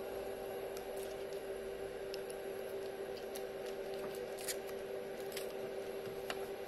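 Scattered small clicks and rattles of a plastic USB dongle and cable being handled and plugged in at the back of a car stereo head unit, a few sharper clicks in the second half, over a steady hum.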